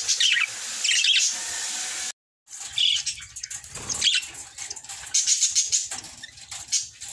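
A flock of budgerigars chirping and chattering in quick bursts of short high calls. The sound cuts out completely for a moment about two seconds in.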